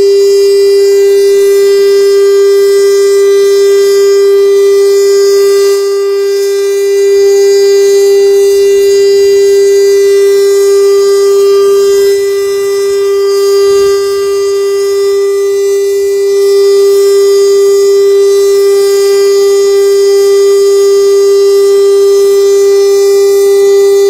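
STL-10 tornado siren sounding a steady tone at full pitch during a siren test, the pitch held without rising or falling. Its loudness dips slightly twice, about a quarter and half-way through.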